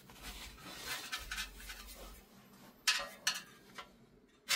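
Handling noise of a large 18-inch loudspeaker being turned over in the hands with a screwdriver: rubbing and scraping, with a few sharp knocks about three seconds in and again near the end.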